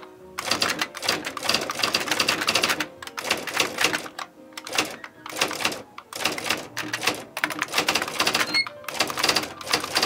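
IBM Wheelwriter 10 Series II electronic typewriter being typed on: a rapid clatter of the daisy-wheel print mechanism striking and the buckling-spring keys clicking, in quick runs broken by short pauses.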